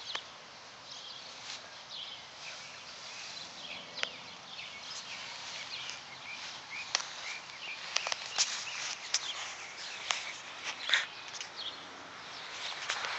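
Small dog sniffing and moving through grass: a string of short sniffs and rustles, most of them in the second half.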